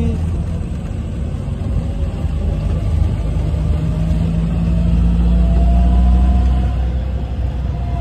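Maruti Gypsy safari jeep's engine running as it drives, a steady low rumble that swells for a few seconds past the middle.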